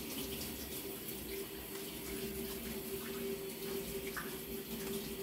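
Faint running water, as from a tap, over a steady low hum.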